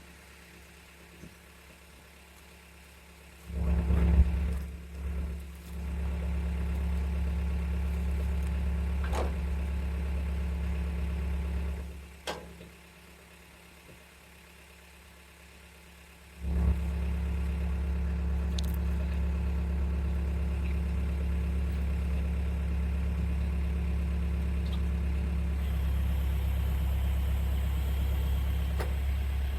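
A steady low motor hum that switches on a few seconds in, stops about twelve seconds in, then starts again sharply about four seconds later and keeps running; a few faint clicks and knocks in between.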